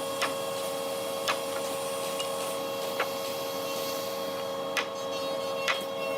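A steady mechanical hum with five sharp knocks or taps at uneven intervals, about one every second or two.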